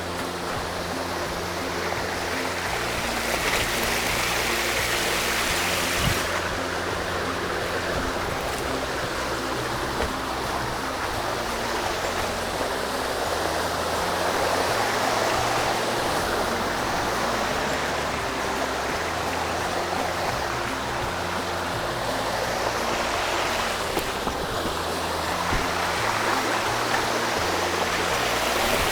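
Mountain stream rushing steadily over rocks, with soft background music of low held notes underneath.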